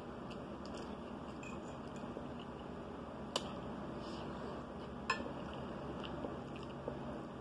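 Metal fork clinking on a ceramic plate while mashed potatoes are scooped up and eaten: two sharp clinks about a second and a half apart, the second louder, and a few faint ticks, over a steady low background hum.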